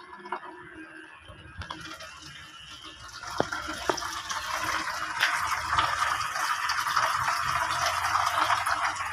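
Electric pet clippers running as they are pushed through a dog's heavily matted coat, a rough hissing, crackling buzz that grows louder from about three seconds in, with a few sharp clicks.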